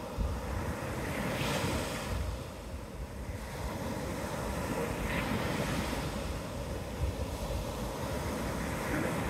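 Gulf of Mexico surf breaking and washing up the beach, with wind rumbling on the microphone. The wash swells about a second and a half in and again near the end.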